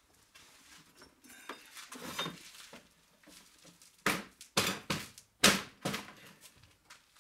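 Workshop handling noise: light rustling and shuffling, then about four loud knocks and clatters in quick succession from about four seconds in, as things are moved and set down.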